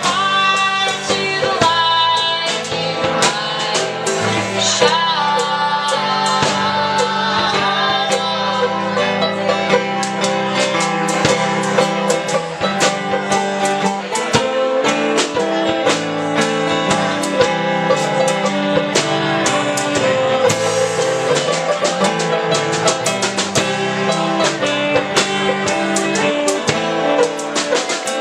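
A swamp-folk band playing live, with guitar and other plucked strings over a steady pulse and a melody line on top.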